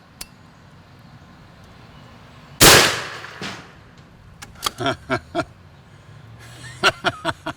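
A single shot from an AirForce Texan .45-calibre big-bore air rifle: one loud, sharp report about two and a half seconds in, dying away over about half a second, followed under a second later by a fainter knock.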